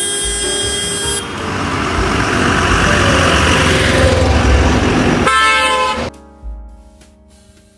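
Truck horn sounding for about the first second, then the truck passing close by with a loud rush of engine and tyre noise that peaks around four seconds in. A second short horn blast comes about five seconds in, after which the sound drops away quickly.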